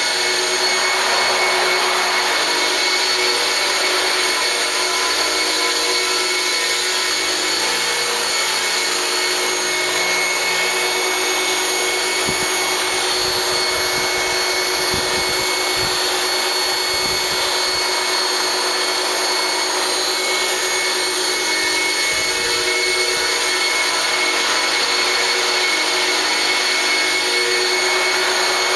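Electric 450-size RC helicopter flying, its motor and rotors giving a steady high whine over a hiss, with a few low thumps around the middle.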